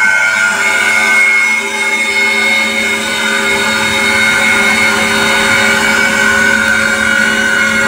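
Retrofitted VMC400 CNC vertical machining centre running, with a steady whine made of several high and low tones over a machine hum.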